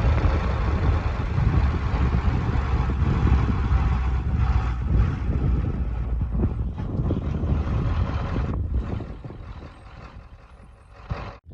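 Vehicle running and moving, a steady low rumble that drops away after about eight and a half seconds.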